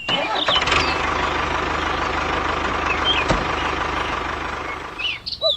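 Small motor of a home-built mini tractor running steadily with a fast, even pulse, and a single sharp click about three seconds in.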